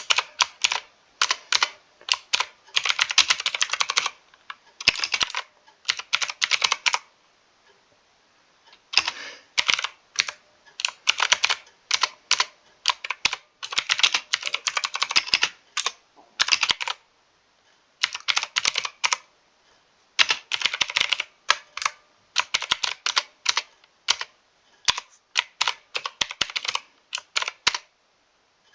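Typing on a mechanical keyboard: quick runs of key clacks in bursts of a few seconds, with brief pauses between them.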